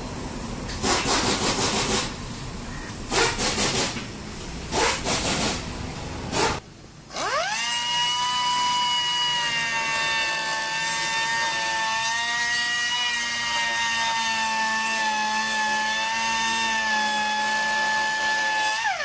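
A few short bursts of noise, then a handheld rotary cutting tool spins up about seven seconds in and runs with a steady high whine as its cutter bores through the plastic bumper skirt. It spins down at the very end.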